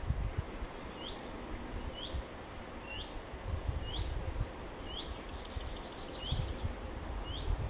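A songbird calling a short rising note over and over, about once a second, with a brief fast trill from another bird a little past the middle. Gusts of wind rumble on the microphone underneath.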